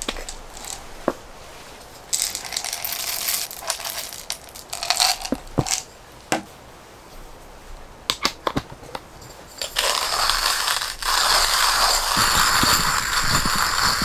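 Coffee beans rattling into a hand coffee grinder as they are poured from a jar. A few clicks follow as the crank is fitted, then the grinder runs in a steady grinding noise from about ten seconds in.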